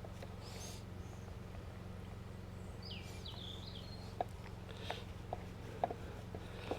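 Faint scattered clicks and taps from rolling wood stain onto timber with a small paint roller, over a steady low hum. A bird chirps briefly about three seconds in.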